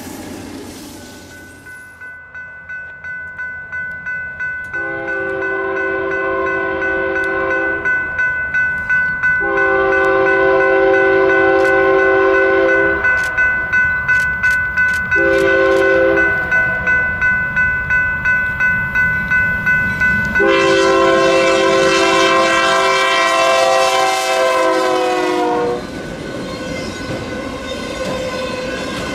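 Air horn of a GE Dash 9 diesel locomotive sounding the long, long, short, long grade-crossing signal as a chord of several notes, the last blast held longest. Between the blasts comes the rhythmic clatter of the freight train's wheels on the rails.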